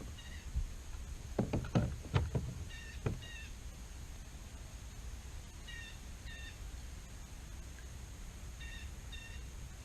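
Several knocks against a kayak in the first three seconds while a landed bass is handled. A bird repeats short, paired calls every three seconds or so.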